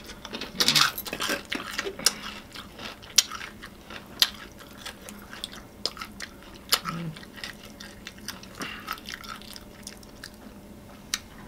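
Crisp breading on Popeyes fried chicken crackling as the piece is pulled apart by hand, along with close-up chewing. A louder crunch comes about a second in, then single sharp crackles every second or few.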